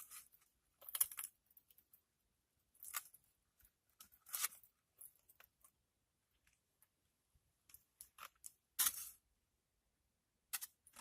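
Quiet eating sounds: short, scattered mouth and food-handling noises, one every second or two, with near silence between.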